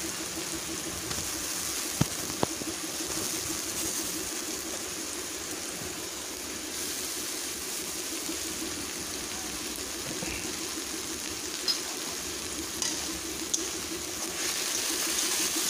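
Ginger-garlic-cumin-coriander paste sizzling steadily in hot mustard oil with browned onions in a steel kadai. A few sharp clicks of the ladle against the pan come about two seconds in and again near the end as it is stirred.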